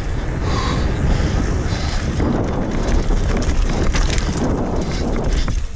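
Wind buffeting the camera microphone over the rumble and rattle of a mountain bike rolling at speed. It turns rougher and choppier partway through as the bike leaves the tarmac for a rocky dirt trail.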